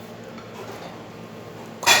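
Low room noise, then a sudden loud clatter of dishes and utensils near the end.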